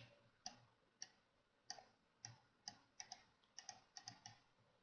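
About a dozen faint computer mouse button clicks at uneven intervals, coming closer together after about three seconds.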